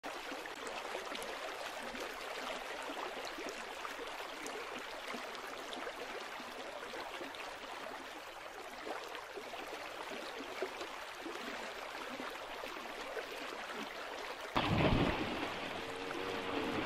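Steady rushing, splashing water. Near the end it turns suddenly louder, with wind buffeting the microphone.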